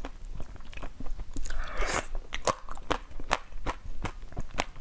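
Close-miked biting and chewing of frozen durian flesh: many sharp crunchy clicks, with a longer crackling crunch about a second and a half to two seconds in.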